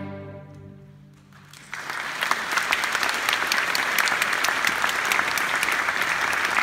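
A string orchestra's final chord dies away, then an audience starts applauding a little under two seconds in and keeps clapping steadily.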